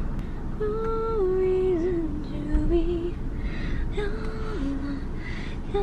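A woman singing a slow tune unaccompanied, in two phrases of long held notes that step downward, over a steady low rumble.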